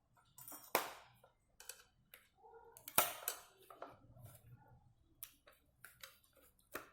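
Scattered small clicks and taps of screws and a screwdriver being worked into a plastic car-mirror housing, the loudest tap about three seconds in.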